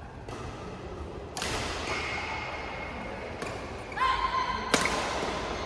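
Badminton rackets striking the shuttlecock twice, sharp cracks about three seconds apart with a short ring in a large hall; the second strike, near the end, is the louder.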